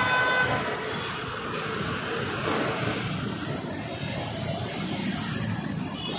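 Street traffic noise from motor scooters and motorcycles passing on a busy road, with a vehicle horn sounding briefly at the start.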